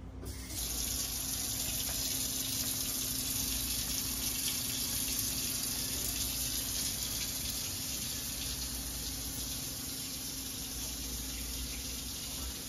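Kitchen faucet turned on about half a second in, then running steadily into a stainless steel sink as an even hiss.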